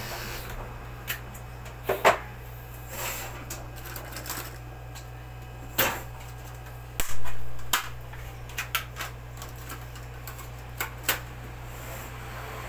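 Irregular clicks, taps and a few louder knocks of an electric dog clipper being handled on a metal diamond-plate grooming table, over a steady low hum. The loudest knock comes about seven seconds in and rings on briefly.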